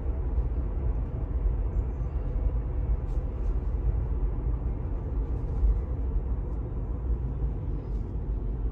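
Steady road and tyre rumble heard inside the cabin of a 2018 Tesla Model 3 driving at about 35 mph. The drive-unit whine is almost gone, after the drive unit's ground nut was tightened.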